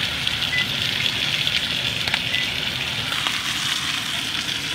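Ribeye searing in hot canola oil in a cast-iron pan: a steady sizzle with crackles and a few sharp pops. Two short beeps from the oven's timer buttons being pressed come through over it.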